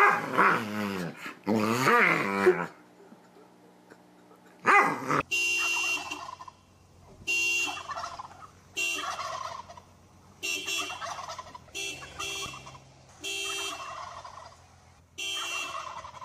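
A dog whines and howls with rising and falling pitch for the first few seconds. Then a minivan's horn is honked in a run of about nine short blasts of varying length, with wild turkeys gobbling along with them.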